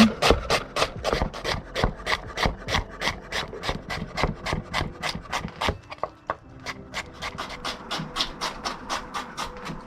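Knife slicing onion thinly on a cutting board: quick, even cuts at about five a second, pausing briefly around the middle before carrying on.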